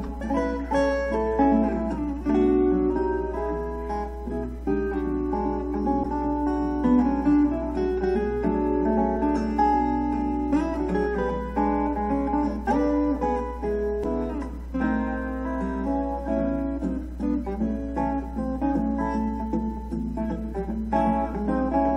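Background music played on acoustic guitar, with plucked and strummed notes throughout.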